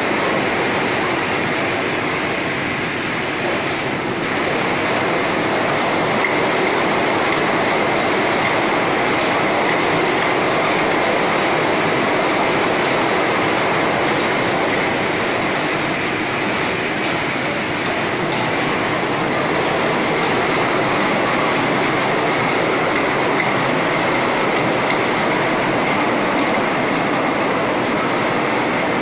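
Bottle unscrambler and conveyor line running: a steady, dense clatter of empty bottles jostling along the conveyor over machine noise, with a thin steady whine.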